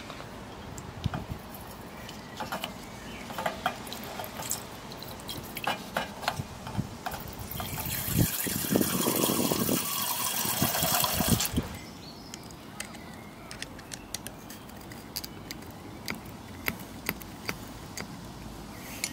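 A large syringe squirts a stream of water into a small copper feed-water tank for about three seconds, a splashing fill that stands well above a background of faint scattered clicks.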